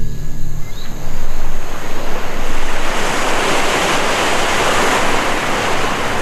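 Ocean surf breaking and washing up onto a beach: a loud, steady rushing of water that swells about a second in.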